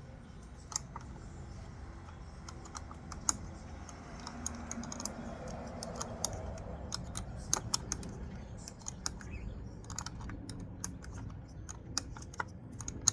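Irregular light clicks and taps, dozens of them with no steady rhythm, over a low steady hum.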